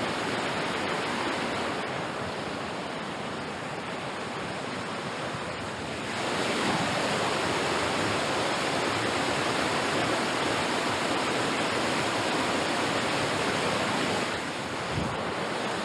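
Steady rush of river rapids, growing louder about six seconds in and easing back near the end.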